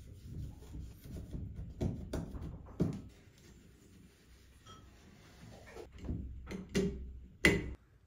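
Tissue rubbing and scraping against the plastic grille of a ceiling exhaust fan in uneven wiping strokes. The rubbing is quieter for a few seconds in the middle, then stronger again, ending in one sharp knock shortly before the end.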